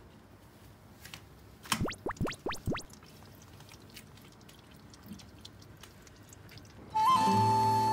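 A kitten eats wet cat food quietly, with faint chewing and licking. About two seconds in, a quick run of several falling swoops is heard, and flute music comes in loudly near the end.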